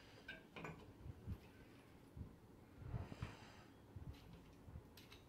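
Near silence broken by faint, soft knocks and a few light scrapes and clicks: broken terracotta pot shards being set down and arranged in a ceramic wash basin.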